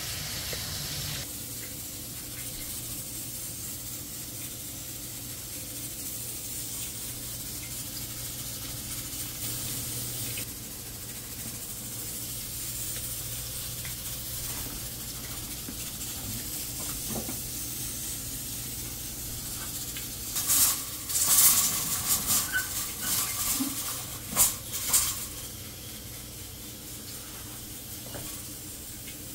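Steady hiss of pots cooking on a gas stove, with a cluster of metal clanks from pots and lids being handled about two-thirds of the way through.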